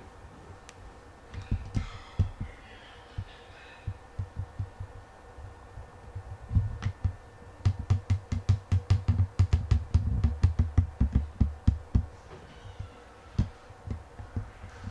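A string of dull thumps with sharp knocks on top. They come a few at a time at first, quicken to about four a second in the middle, then thin out near the end.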